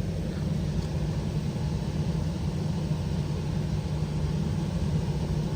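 Steady low droning hum of running air-conditioning equipment, even and unbroken, with no clicks or changes.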